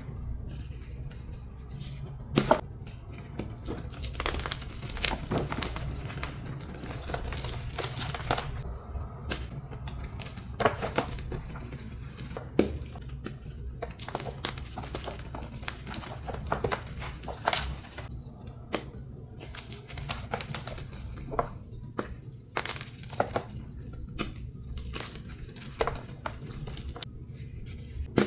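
Dyed and pasted gym chalk blocks being crushed and crumbled, giving irregular sharp, dry crunches over a low steady hum.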